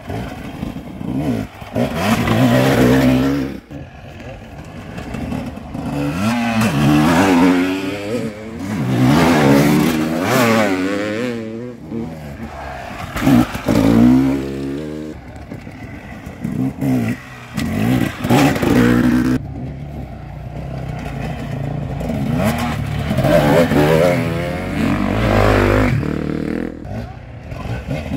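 Dirt bike engines revving up and down as several off-road motorcycles ride past one after another, the pitch rising and falling repeatedly, with each bike swelling louder as it nears and fading as it goes.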